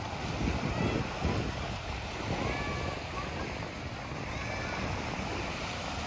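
Small waves washing onto a sandy beach, with wind rumbling on the microphone, strongest in the first second or so. Faint distant voices of people come through now and then.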